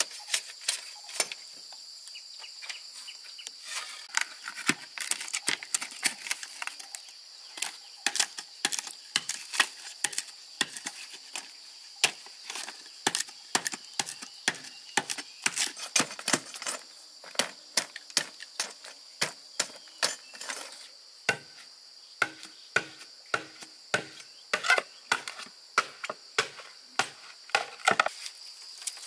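Rapid, irregular sharp knocks and taps of hand-tool work, several a second, over a steady high insect drone.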